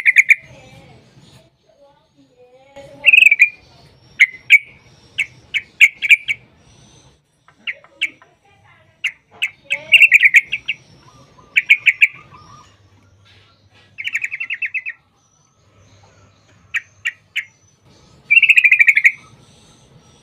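Trucukan (yellow-vented bulbul) calling: loud bursts of short chattering notes, some running together into rapid rattling trills about a second long, separated by short pauses.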